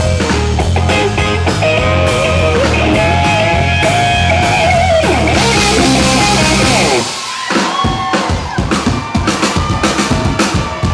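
Live rock band playing: electric guitar lead with bent notes over bass and drums. About seven seconds in the bass and guitar drop away and the drums carry on with a run of quick hits.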